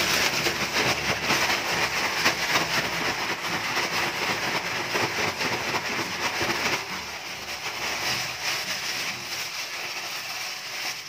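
Plastic bag crinkling and rustling as salted cucumber and carrot sticks are shaken around inside it. After about seven seconds the rustling gets softer as the bag is pressed flat by hand.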